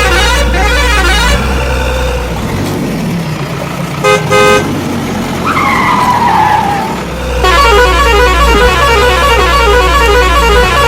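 Two short horn toots about four seconds in, followed by a falling whistle-like glide. Around them runs a loud steady vehicle rumble with a busy repeating pattern, which drops out in the middle and returns near the end.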